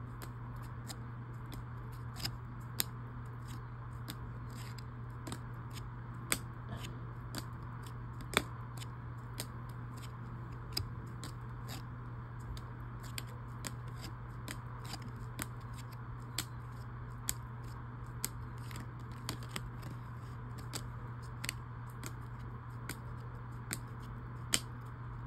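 Stiff trading cards being slid and flicked one by one off the top of a stack held in gloved hands: short, sharp clicks at irregular intervals, about one or two a second, over a steady low hum.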